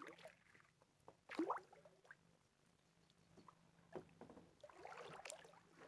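Near silence around a kayak sitting still on calm water, with a few faint water drips and small knocks of the paddle or hull, a small cluster of them a few seconds in.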